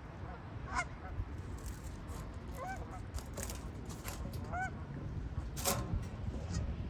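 Geese honking: a few separate short calls spread through, over a steady low rumble.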